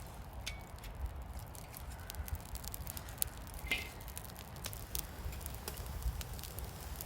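Wood campfire crackling, with scattered sharp pops and snaps.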